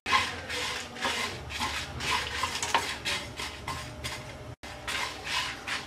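A wooden spatula stirs whole spices (fennel and coriander seeds with dried red chillies) being dry-roasted in a non-stick pan. The seeds rattle and scrape in a quick run of strokes, about three a second.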